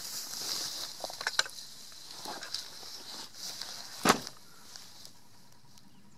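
Hands working the pan head of tripod-mounted binoculars: light handling rustle and a few soft clicks, with a sharper knock about four seconds in, over a faint steady hiss.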